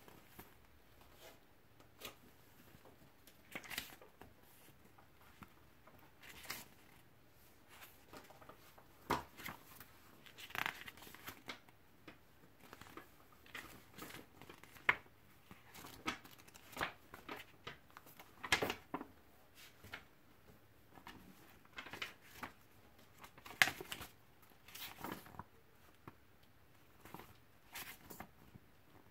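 Paper pages of a thin instruction booklet being turned one after another: irregular crisp rustles and flicks, a few of them louder than the rest.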